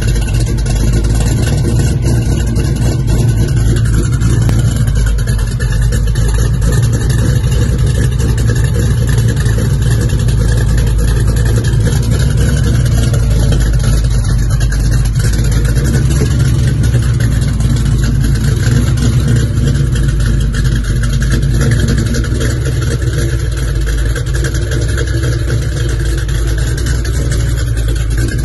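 Supercharged V8 of a 1968 Chevrolet Camaro SS idling steadily and cleanly, heard from behind at the exhaust tailpipes.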